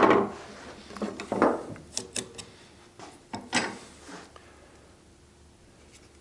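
Wood chisel cutting into hardwood while paring the sides of a mortise: a handful of sharp knocks and short scraping cuts, the loudest at the very start, spread over the first four seconds or so.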